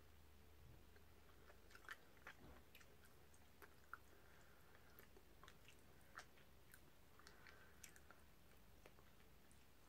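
Faint, irregular wet mouth clicks of someone chewing a soft, sticky strawberry mochi rice cake, over a low steady room hum.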